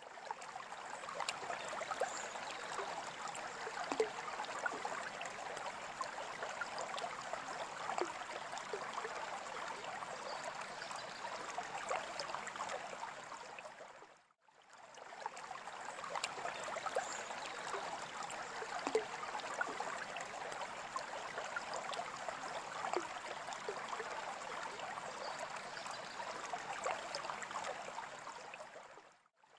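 Aquarium water trickling and bubbling steadily, full of small splashing ticks. About halfway through it fades out briefly and comes straight back in, as a repeating loop.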